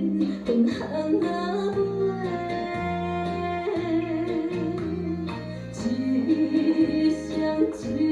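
A Hokkien pop song in tango rhythm playing: a singer's held, wavering melody over bass notes and plucked accompaniment, with a steady beat.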